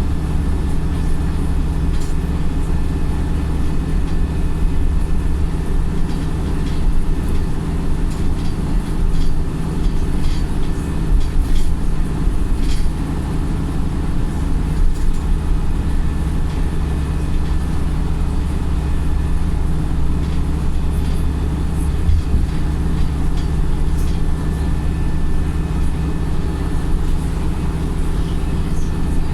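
Wright StreetLite single-deck bus heard from inside the passenger cabin: the diesel engine drones steadily under way, with a few sharp interior rattles.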